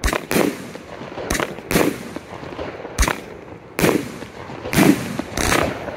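25-shot consumer firework cake firing: about eight sharp bangs in six seconds at uneven spacing, some in close pairs, as shells launch and burst overhead.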